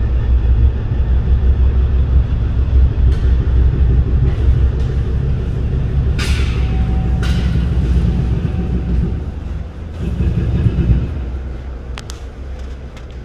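Heavy diesel demolition machinery running with a loud, steady low rumble. There are sharp knocks about six and seven seconds in and a click near the end, and the rumble fades near the end.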